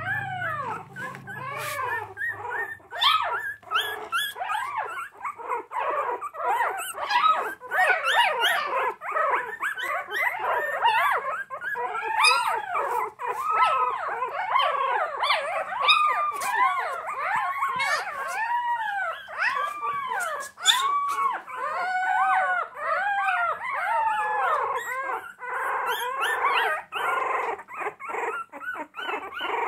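A litter of young puppies, their eyes just opened, crying with many overlapping short whines that rise and fall in pitch, one after another without pause. Scattered faint clicks run underneath.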